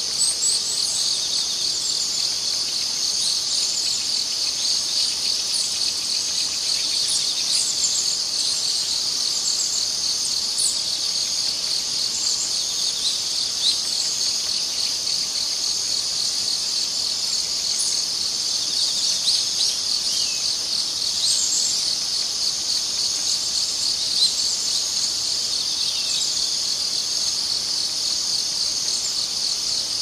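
Steady outdoor chorus of insects such as crickets, a dense high-pitched trilling made of fast pulses. Scattered short high chirps sound over it now and then.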